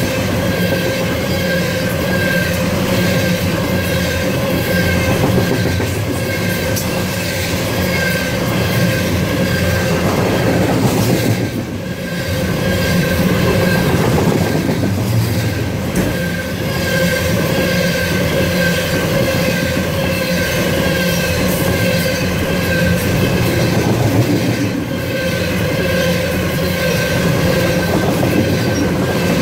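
Loaded coal cars of a long freight train rolling past at speed: a steady rumble of steel wheels on rail, with a continuous high wheel squeal and scattered clicks. The loudness dips briefly twice.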